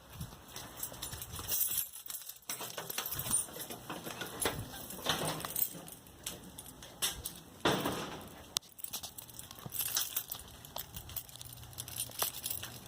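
Keys jangling, with scattered small clicks and rustles of keys and a lock being handled.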